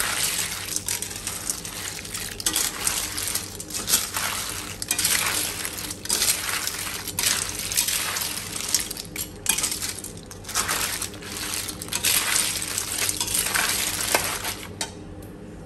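Water snails in their shells being stirred in a metal pan with a metal spoon. The shells clatter against each other and the pan in repeated stirring strokes, then die down near the end.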